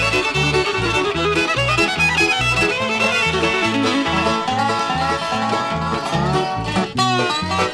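Bluegrass band playing an instrumental break: banjo and fiddle over guitar, with a steady, regular beat in the low notes.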